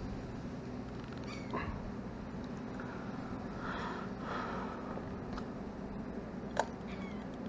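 Steady low hum with a few short animal calls, and a single sharp click near the end as the spinning reel's bail is snapped shut after a cast.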